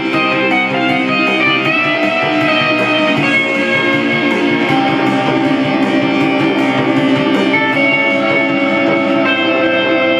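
Guitar music, electric guitar among it, with dense held notes and chords that change every few seconds at a steady loudness.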